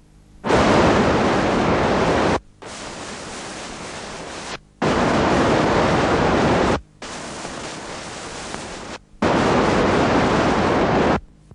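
Electronic noise signal, an even hiss, played in five bursts of about two seconds each that switch on and off abruptly with short gaps between. The bursts alternate between louder and quieter.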